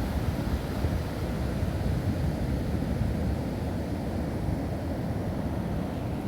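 Ocean surf breaking and washing up the beach, heard as a steady low rumble, with wind buffeting the microphone.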